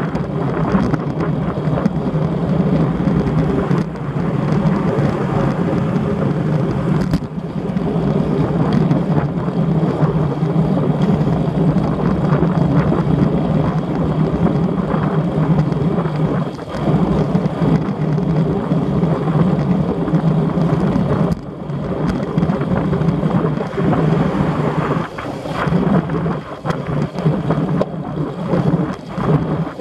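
Wind buffeting the microphone of a Shimano Sportcam action camera on a road bike at riding speed: a loud, steady rumble that dips briefly now and then.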